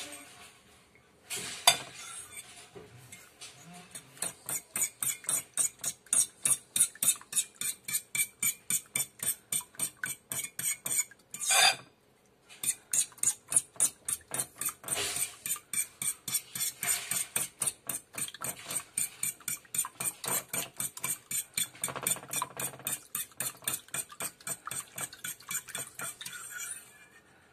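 Metal fork beating raw eggs in a ceramic bowl, scraping and clinking against the bowl in quick, regular strokes at about four a second. A louder clink against the bowl and a short pause come about twelve seconds in.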